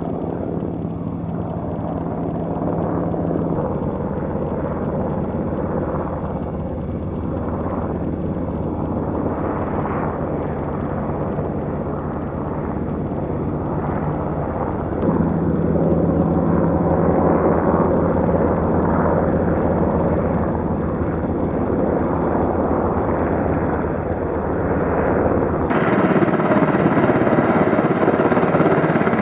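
UH-60 Black Hawk helicopter running, a steady rotor chop over turbine noise. It grows louder about halfway through and again near the end.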